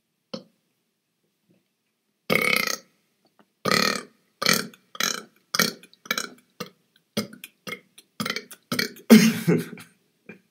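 A man burping deliberately: one long burp a little after two seconds in, then a string of short burps about two a second, the loudest near the end.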